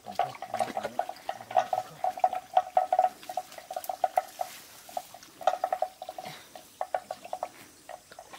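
Hands sloshing and scooping in shallow muddy water, with scattered wet clicks and splashes, over a rapid pulsing trill at one steady pitch that comes in short runs.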